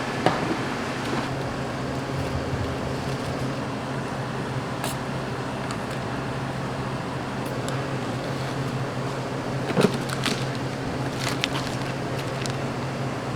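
Steady low machine hum, such as a kitchen fan or extractor, with scattered light clicks and knocks of kitchen work; the loudest knock comes about ten seconds in.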